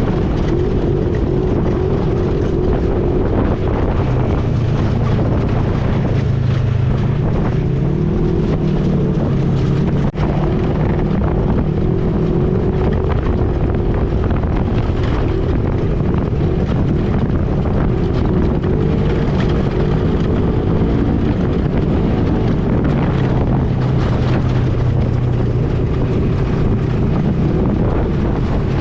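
Off-road ATV engine running steadily while under way, its pitch rising and falling as speed changes, with wind noise on the microphone.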